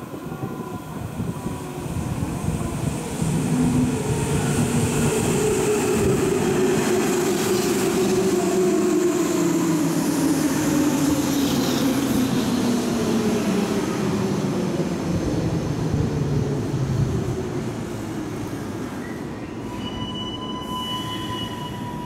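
Hanshin 5000-series 'Jet Car' electric commuter train running in and braking, with a rumble of wheels on rail. Its traction-motor whine falls slowly in pitch for about fifteen seconds as it slows, then fades. A thin, steady high squeal sounds near the end.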